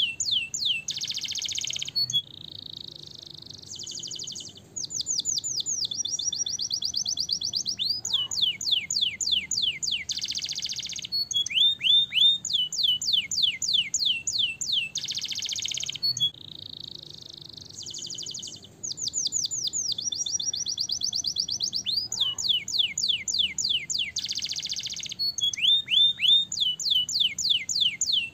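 Domestic canary singing a long song of rapid trills ('rolls'): fast runs of repeated sweeping notes alternating with buzzy stretches and a brief quieter passage. The same sequence of phrases comes round again about halfway through.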